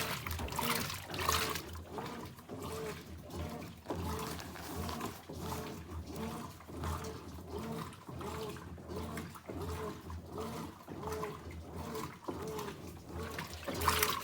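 Brastemp 17 kg washing machine agitating a load of jeans in water: rhythmic sloshing with a motor stroke repeating a little under twice a second.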